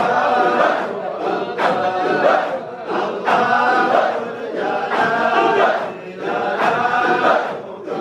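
A large crowd of men chanting a Sufi dhikr together in unison, in rhythmic repeated phrases that rise and dip about every second and a half.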